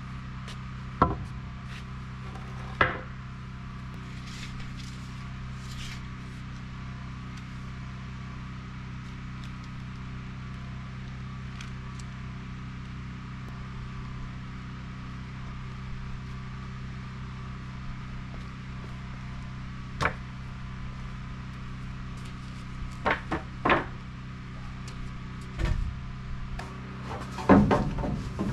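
Occasional sharp knocks of lumber and tools during wall framing: two near the start, then a few more in the last several seconds, over a steady low hum.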